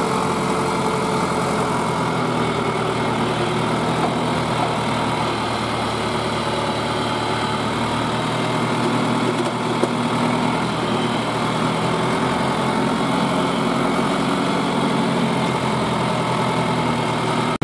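Farm tractor with a front loader, its engine running steadily at an even speed as it drives, heard close up from the driver's seat.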